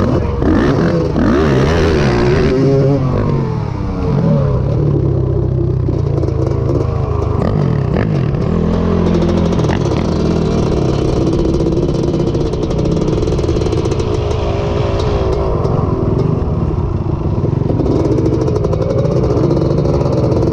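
Honda ATC250R three-wheeler's two-stroke single-cylinder engine running at part throttle, its pitch rising and falling as the rider eases along at low speed. A rush of noise over it in the first few seconds.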